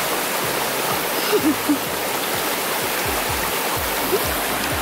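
Clear, shallow rocky stream rushing over small cascades: a steady, even rush of water.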